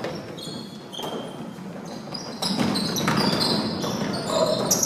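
A basketball being dribbled on a hardwood gym floor, with many short, high sneaker squeaks as players cut and shuffle during play. The squeaks get busier and louder after about two and a half seconds.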